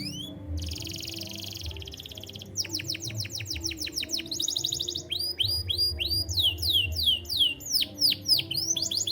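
Domestic canary singing a series of rolling phrases. It opens with a fast buzzing trill, then a quick run of downward-sweeping notes and a second short trill. Slower falling whistles repeat through the second half.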